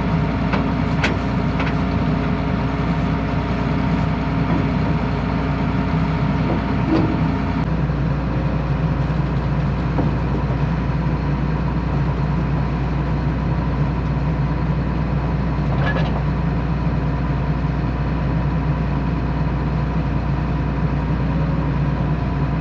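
John Deere combine's diesel engine running steadily, a deep even hum whose tone shifts slightly about eight seconds in.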